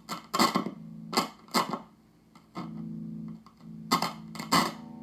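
A microphonic preamp 12AX7 tube in a Fender Twin Reverb being tapped with a plastic tweaker, each tap coming out of the speaker as a loud ringing clang. The taps come in pairs, three times, with the amp's steady hum between them. The ringing marks the tube as badly microphonic.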